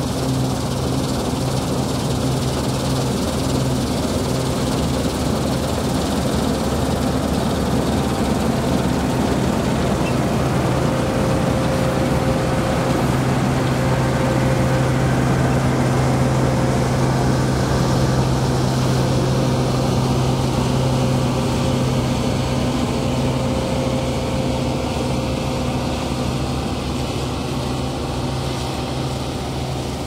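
New Holland TX65 combine harvester running while cutting wheat: a steady engine drone over the rushing noise of the header and threshing machinery. It grows a little louder as the machine passes close by around the middle and eases off near the end as it moves away.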